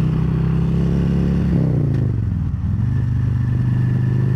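Harley-Davidson Street Glide Special's Milwaukee-Eight 114 V-twin running at road speed. About one and a half seconds in, its note falls over about a second and then settles steady at lower revs.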